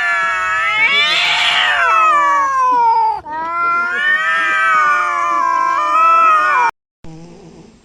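Domestic cat giving two long, drawn-out yowls, the pitch wavering up and down through each; the second cuts off abruptly near the end.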